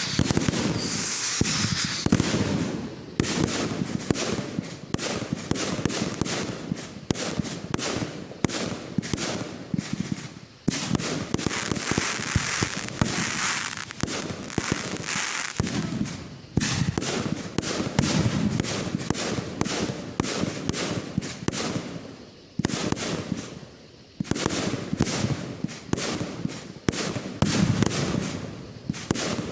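Fireworks going off in rapid succession: a dense string of sharp reports and crackling, with a hiss near the start and a few short lulls.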